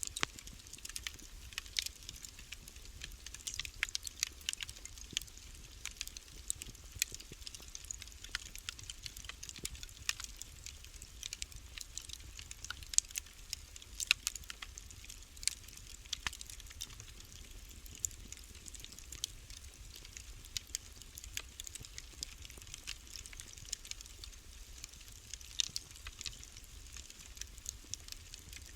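Wood fire burning in a fireplace, crackling with irregular sharp snaps and pops, several a second, a few louder than the rest, over a steady low rumble.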